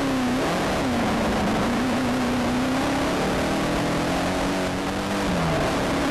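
Engine of a Volkswagen Beetle-based off-road race car under hard acceleration, heard from inside the car, over steady loud road and wind noise. The engine pitch dips and climbs again about half a second in, holds fairly steady, then drops a little after five seconds and climbs again.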